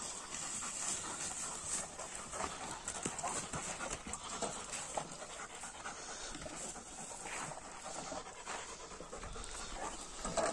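Young Georgian shepherd dogs (nagazi) panting, out of breath from running and playing.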